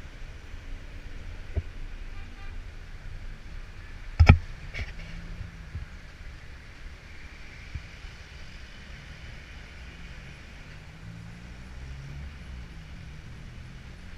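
Street traffic heard from above: several car engines idling and pulling slowly through a congested intersection. About four seconds in comes a short, loud, sharp sound, followed half a second later by a fainter one.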